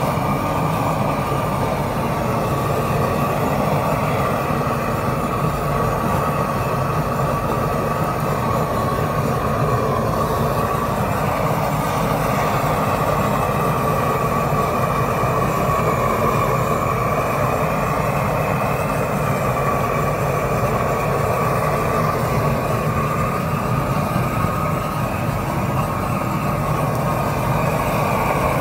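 Propane roofing torch burning steadily, its flame aimed at iced pavers to melt the ice; the flame noise wavers slightly in pitch.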